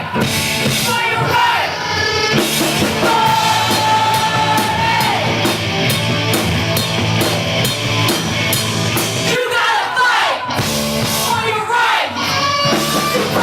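Rock cover band playing with drum kit and a singer holding long notes. About ten seconds in, the bass and drums drop out briefly.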